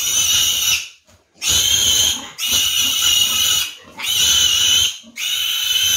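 Piglet squealing in distress while being grabbed and handled: five loud, high-pitched squeals of about a second each, with short breaks between.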